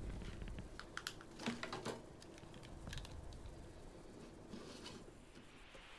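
Faint, irregular light clicks and ticks from a Super 8 film strip being handled on a wooden jig on a workbench. The clicks come in a quick cluster about one to two seconds in, with a few more scattered after.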